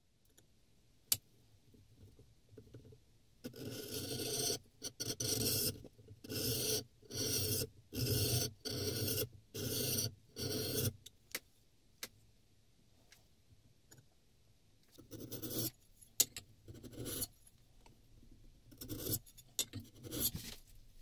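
Steel plane iron being rubbed back and forth on a diamond sharpening plate: a run of about nine scraping strokes, roughly one a second, then a few quieter strokes near the end. A sharp click sounds near the start.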